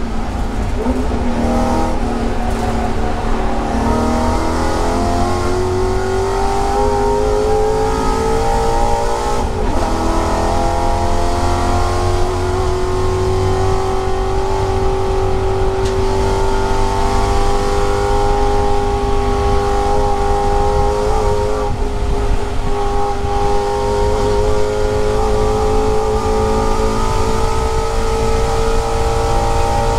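Stinger Mustang race car's engine heard from inside the cockpit, pulling hard at full throttle and climbing in pitch. There is one upshift about nine and a half seconds in, then a long, slow, steady climb in a high gear.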